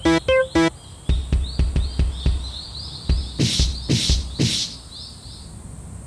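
A level-crossing warning alarm ringing in rapid, evenly spaced electronic strikes, cutting off under a second in. It is followed by a quieter run of quick knocks with short falling chirps, and three loud noisy crashes a little past the middle.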